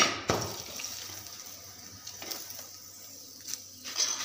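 Mooli paratha sizzling in ghee on a hot tawa, a steady hiss, with a few sharp clicks and knocks of the spatula against the pan.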